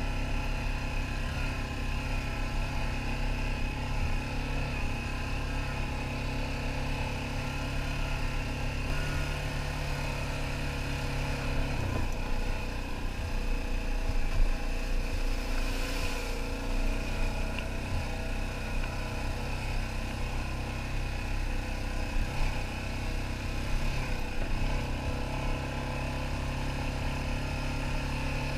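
ATV engine running steadily as the quad is driven over a dirt trail, its note dropping near the middle, with a brief splash as it runs through a muddy puddle a little after.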